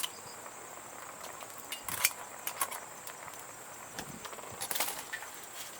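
Steady high-pitched insect drone with scattered light clicks and crackles, the clusters about two seconds in and near the end.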